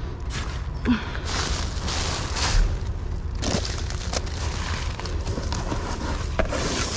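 Plastic bags and cardboard rustling and crinkling as they are handled and shifted about in a dumpster, with a few short knocks.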